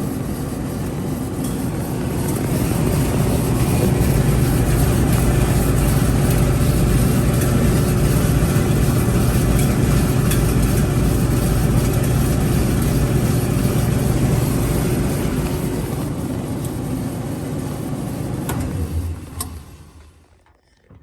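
Speed Queen electric dryer running, its drive motor humming and drum turning with a steady rumble that grows louder about two seconds in, then winding down from about sixteen seconds until it stops near the end.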